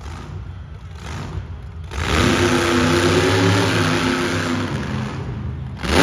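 Monster truck engine, quieter and lower for the first couple of seconds, then revving up about two seconds in and held at high revs, with another sharp rev-up near the end.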